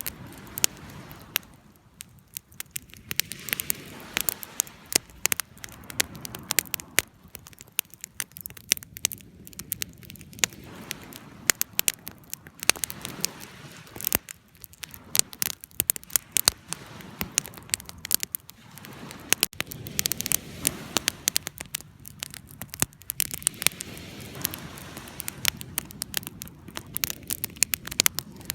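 Wood fire crackling, with irregular sharp pops and snaps over a low steady rush of burning.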